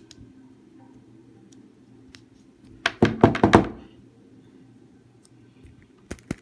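Knocks of small tools against a watch and a hard surface while a strap's screw pins are refitted. About five loud knocks come close together about three seconds in, and a quick run of lighter taps, about five a second, starts near the end.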